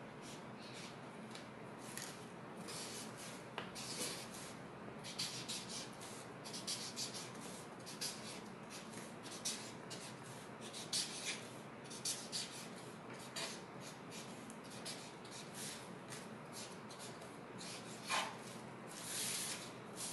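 Marker writing on paper: many short, irregular scratchy strokes one after another as letters are drawn.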